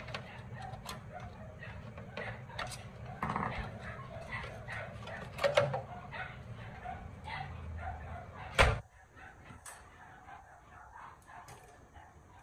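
Clicks and plastic rattling from hands working a loudspeaker loose and lifting it out of an old Panasonic CRT television's plastic cabinet, with one sharp knock about eight and a half seconds in.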